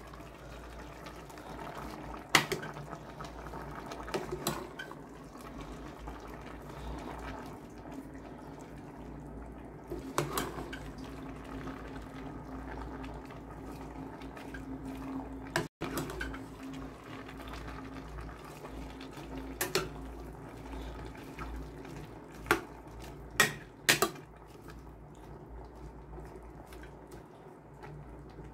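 A metal spoon stirring chicken, mushrooms and bell peppers simmering in a little water in a stainless steel pot. Scattered sharp clinks of the spoon against the pot ring out over a steady bubbling.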